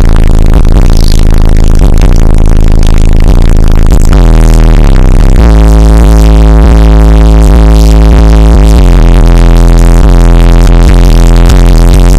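Bass-heavy electronic music played very loud through a truck's car-audio subwoofer system, heard inside the cab. Deep bass notes are held for seconds at a time, at the limit of what the recording can take.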